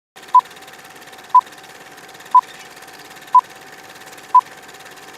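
Short electronic beeps, one each second, five in all, over a steady hiss with a faint constant hum.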